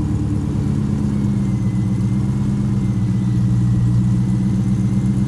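Grullon supercar's engine idling steadily just after catching from a longer-than-usual crank, after its fuel rail was checked for pressure.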